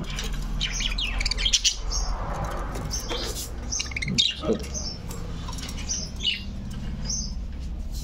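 Budgerigars chirping and chattering in many short, high calls, over a steady low hum.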